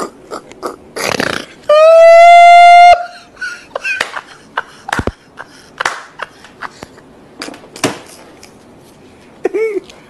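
A man laughing uncontrollably in short bursts, with hand claps, and a very loud high-pitched squeal held for about a second, about two seconds in.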